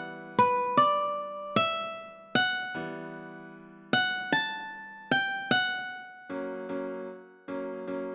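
Ukulele playing a single-note melody, each note plucked and left to ring and fade. About six seconds in, repeated keyboard-like chords take over in an even pulse.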